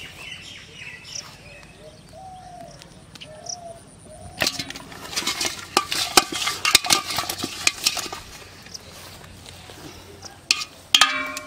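Live fish flapping inside a metal pot, their bodies knocking against its sides in a rapid clatter for a few seconds. Near the end the pot gives a short ringing clank.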